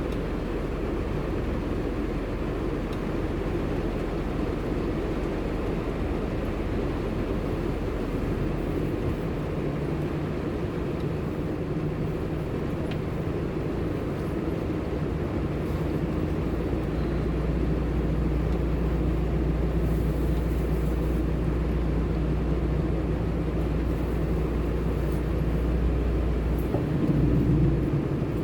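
Steady low rumble of a car's engine and road noise heard from inside the cabin, growing somewhat louder about halfway through.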